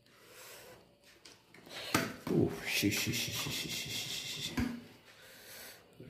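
Rubbing and scraping of a screwdriver and hands working the wire connectors inside an opened gas water heater, starting with a sharp click about two seconds in and followed by a rapid run of small ticks that fades near the end.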